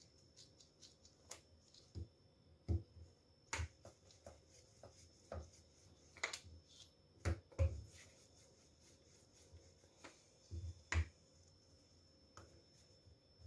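Rolling pin rolling rye dough out on a pastry mat: faint, irregular soft knocks and sharp clicks as the pin is pushed back and forth and the dough is handled.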